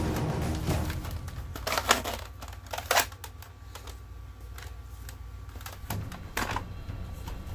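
Hard plastic clicks and clacks of a red Nerf Mega toy blaster being handled, a few separate knocks with the sharpest about two and three seconds in, over a low steady hum.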